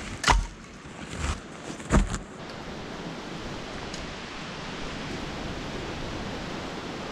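Two loud thuds in the first two seconds, with a softer knock between them. Then a steady rushing noise of wind.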